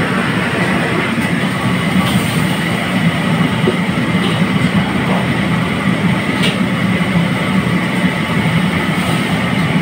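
Steady loud roar of a commercial gas wok range and its kitchen extraction, with a few faint metal clinks of a wire spider strainer against the wok as fried rock lobster pieces are lifted out of the oil.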